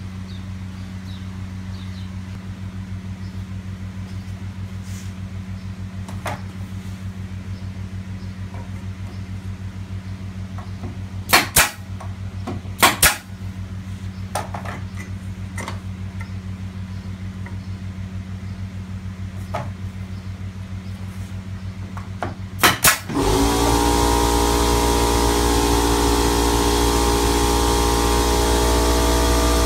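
A low steady hum with a few sharp knocks, two pairs in the middle and two more just before the motor starts. Then an angle grinder switches on and runs at a steady speed with a constant whine until just after the end.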